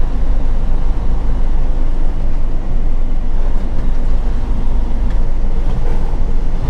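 Semi truck cab while driving: a steady low drone of the diesel engine and road noise.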